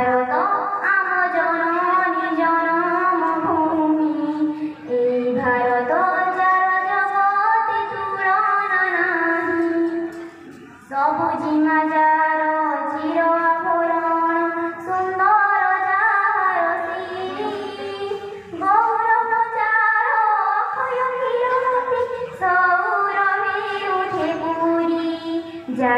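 A girl singing solo into a handheld microphone, unaccompanied, in long held phrases with short pauses for breath.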